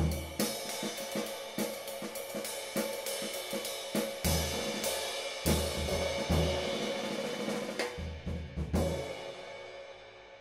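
Hand-hammered 19-inch B20 bronze ride cymbal (1858 g) played with a hickory stick in a quick, steady ride pattern, its wash building under the strokes, with low bass-drum thumps on some beats. The playing stops about nine seconds in and the cymbal rings on, fading.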